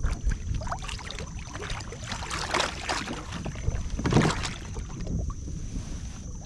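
Someone climbing aboard a plastic fishing kayak from shallow water: irregular splashing and sloshing of feet in the water and rustling of gear, with a louder thump on the hull about four seconds in as he sits down on the seat.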